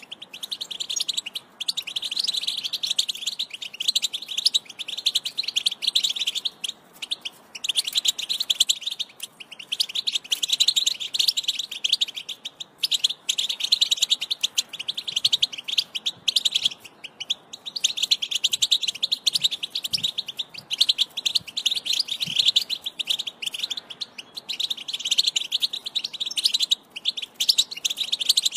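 European goldfinch singing: a long stream of fast, high twittering, broken by short pauses every few seconds.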